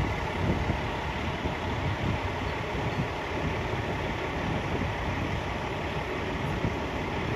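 Fire apparatus diesel engines idling in the station bays, a steady low rumble.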